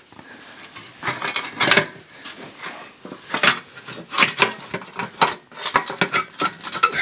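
Irregular metallic clinks and knocks as a metal exhaust guard grille is worked loose and lifted off a mower's muffler by hand.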